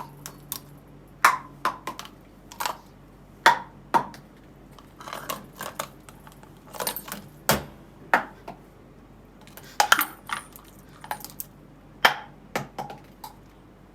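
Light plastic cups and a toy ball knocked and tossed about by a parrot: an irregular series of sharp knocks and clinks, some with a short ring.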